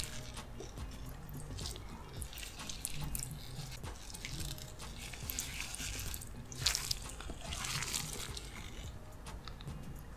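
Gloved hands working a thick, chunky seafood-boil sauce over king crab legs: wet squelches and sticky little clicks, with a louder squish about six and a half seconds in.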